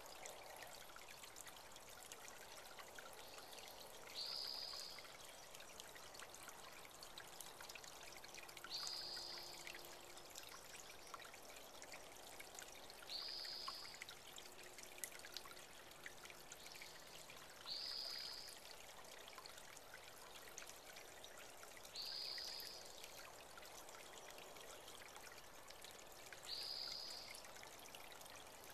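Small creek water trickling and pouring steadily, with a bird giving one short, high call about every four and a half seconds, six times.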